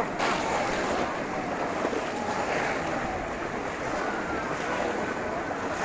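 Steady wash of splashing and sloshing water as a crowd wades through a shallow flooded wetland, plunging bamboo fish traps, with faint distant voices and some wind on the microphone.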